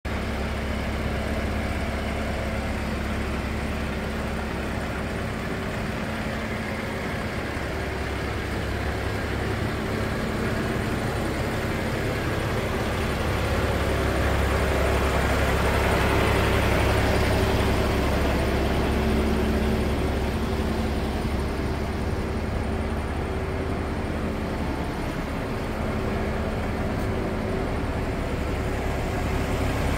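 Volvo FE 320 truck's six-cylinder diesel engine idling steadily, a little louder for a few seconds midway.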